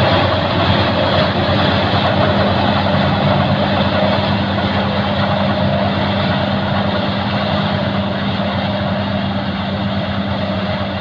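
Kartar 4000 combine harvester running steadily while harvesting: a continuous drone of its engine and threshing machinery with a constant low hum. It grows a little fainter towards the end as the machine moves away.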